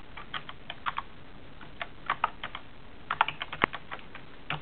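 Typing on a computer keyboard: keystroke clicks in short irregular bursts with brief pauses between.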